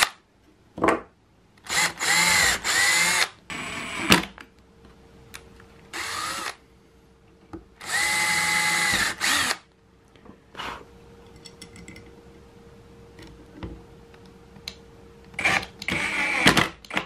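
Cordless drill driving screws into a block of treated pine 2x4. It runs in several short bursts, each speeding up and slowing down as the trigger is squeezed and let go.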